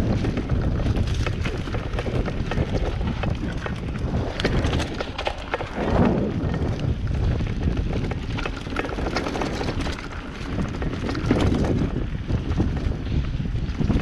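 Mountain bike riding a bumpy dirt trail: tyres rolling over the ground with frequent rattles and knocks from the bike over bumps, under a low rumble of wind on the microphone, swelling briefly about six seconds in.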